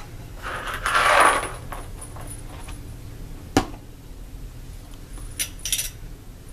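Subwoofer parts being handled on a workbench: a scrape about a second in, a single sharp knock midway, and a short, light metallic jingle near the end.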